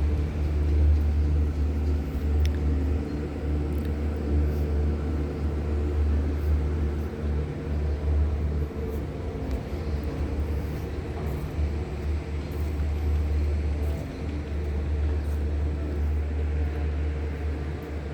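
Steady low rumble with a faint hum, heard inside a moving cable car gondola cabin.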